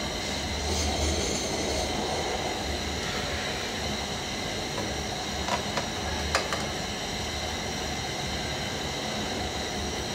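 A metal slotted spoon clinks against a frying pan of scrambled eggs three times about halfway through, the last clink the loudest. Under it runs a steady rushing noise with a low rumble.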